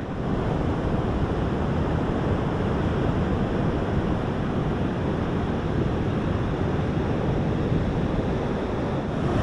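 Ocean surf breaking on a sandy beach, a steady wash of noise, mixed with wind on the microphone.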